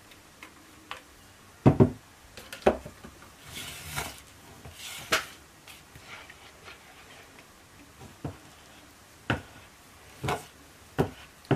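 A spoon knocking and scraping against a plastic jug as soap batter is stirred: a string of sharp knocks about a second apart, with a few short scrapes between.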